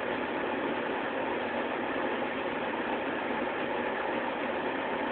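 Steady, even rushing background noise with no separate clicks or taps.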